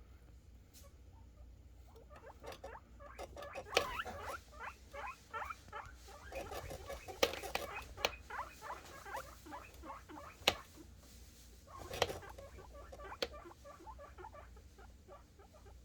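Guinea pig boars squeaking excitedly for food in a rapid run of short squeaks, busiest in the middle, with a few sharp clicks among them.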